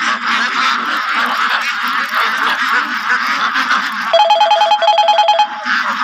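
A large flock of white Pekin ducks calling together in a continuous dense chatter. About four seconds in, a rapid electronic trill on two alternating pitches sounds in two short runs over the flock for about a second and a half.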